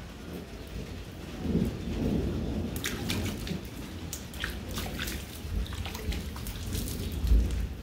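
Rain falling, with many sharp drop taps close by from about three seconds in, over a low, uneven rumble that swells near the end.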